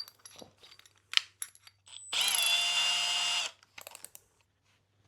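Power drill running once for about a second and a half, a steady whine, enlarging a pilot hole in a replacement air filter part; light handling clicks before and after.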